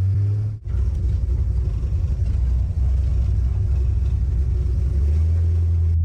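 1967 Pontiac Firebird's 400 cubic-inch V8 running steadily while the car is driven, a deep low rumble. The sound drops out briefly about half a second in.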